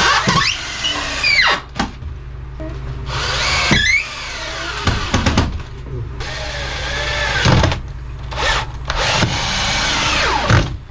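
Power tool running in about six bursts of half a second to two seconds, its pitch rising and falling as it speeds up and slows down, over a steady low hum.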